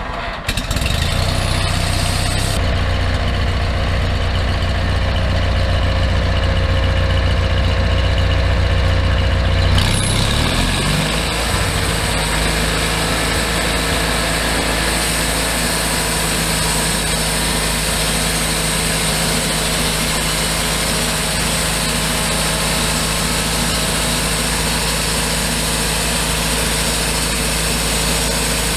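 A homemade band sawmill running loud and steady, its small engine under load while the bandsaw blade makes its first cut into wood. About ten seconds in, the engine's low tone changes, then holds steady.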